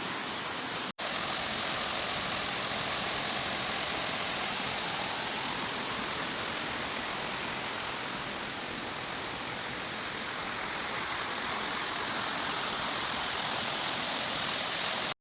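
Waterfall: a steady, even rush of falling water, broken by a brief drop-out about a second in.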